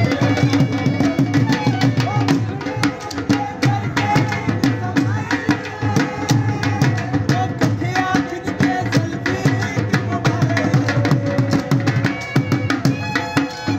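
Traditional folk music: fast, steady hand-drum strokes under a melody line.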